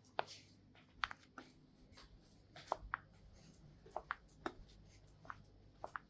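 A whippet's claws clicking faintly and irregularly on a tiled floor as it walks.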